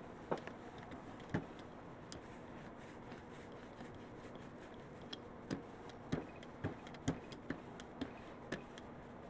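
Faint, scattered clicks and ticks from a rubber brayer being rolled and worked over a gel printing plate loaded with black acrylic paint. The clicks are sparse at first, then come about twice a second in the second half.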